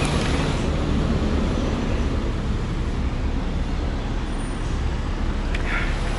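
Steady street traffic and road noise with a low rumble, and a short click near the end.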